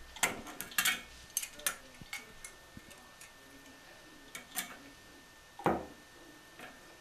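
Irregular metal clicks and scrapes of channel-lock pliers on a bathroom sink pop-up drain's mounting nut as it is worked loose, the loudest clicks just after the start, around one second in and near six seconds.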